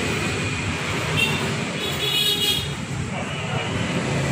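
Steady road traffic noise with a low hum, and a short high tone about a second in that lasts just over a second.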